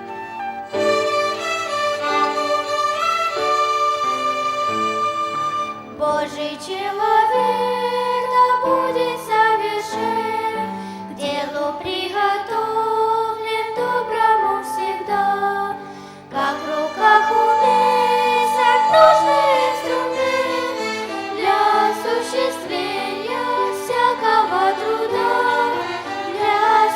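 A violin ensemble plays a slow introduction in long held notes; about six seconds in, singers come in with a hymn and the violins go on accompanying them.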